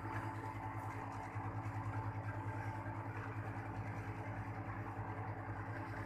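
Split air conditioner outdoor unit running, its compressor and fan giving a steady low hum with a rapid throb, while its refrigerant pressure is checked through a gauge hose on the service valve.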